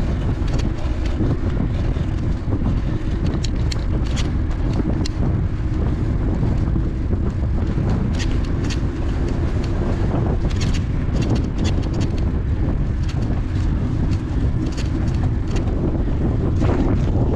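Wind rumbling steadily on the microphone of a camera carried on a moving bicycle, with scattered short ticks.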